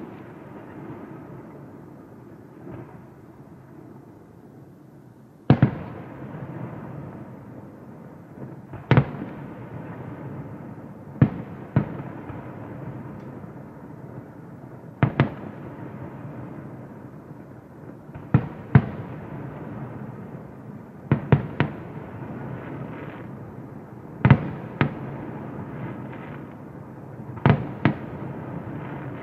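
Aerial firework shells bursting: about fourteen sharp bangs at irregular intervals, some in quick pairs and one quick triple, each trailed by a lingering rumble. The first five seconds are quieter before the bangs begin.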